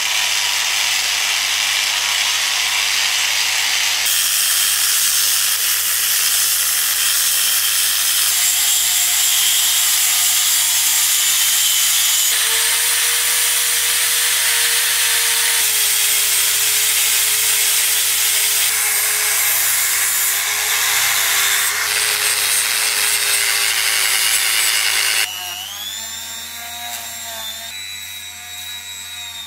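Angle grinder with an abrasive wheel scrubbing rust off a perforated metal grille, loud and steady, cut together from several short takes. Near the end it gives way to the quieter, wavering whine of a small rotary tool running a brass wire wheel along a thin metal strip.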